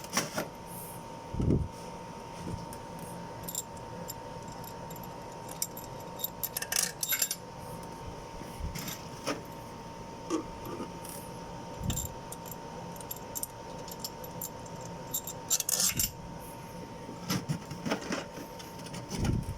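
Scattered light metallic clinks and jingles as steel head-bolt washers and bolts are handled and dropped into the bolt holes of a Toyota 1NZ-FE cylinder head. A faint steady whine runs underneath.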